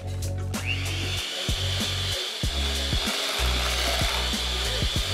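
Electric mixer beating cake batter: the motor starts about half a second in with a quick rising whine, then runs at a steady high pitch. Background music plays underneath.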